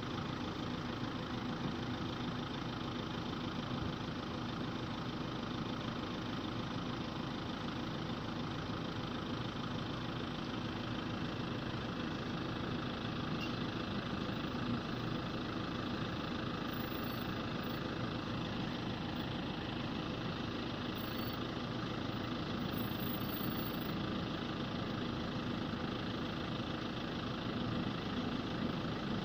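Pickup truck engine idling steadily, with no revving.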